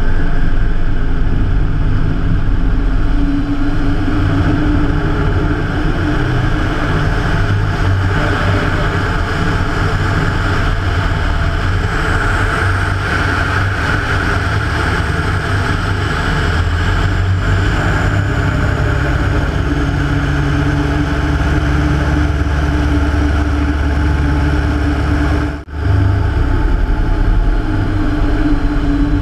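Rotec R3600 nine-cylinder radial engine of a Hatz biplane running in flight, mixed with propeller and wind noise; the engine note rises and falls with changes in power. The sound drops out for an instant near the end.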